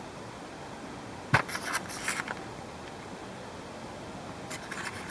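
Handling noise: a sharp tap about a second in, then a short flurry of small clicks and scrapes, and another flurry near the end, over a steady faint hiss.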